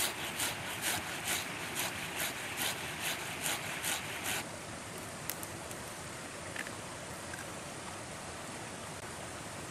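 Raw potato being grated on a metal box grater into a steel bowl: rhythmic rasping strokes, about two a second, which stop about four seconds in. After that, the steady rush of a forest stream.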